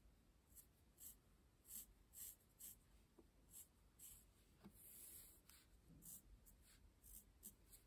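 Felt-tip pen drawing on coarse-weave embroidery fabric: a faint run of short, scratchy strokes at an uneven pace, with one longer stroke about five seconds in.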